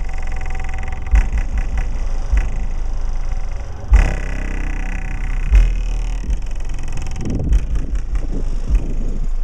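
Sony Xplod car subwoofers on a small amplifier playing deep low bass: a steady low rumble with harder bass hits every second or two, each carrying a brief buzz higher up.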